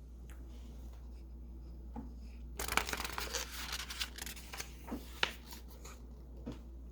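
Paper rustling as a picture-book page is handled and turned, with a few light taps, over a steady low hum.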